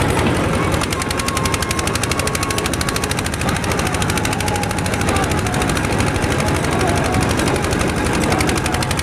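Boat engine running steady and fast close by, a rapid even chugging of about a dozen beats a second.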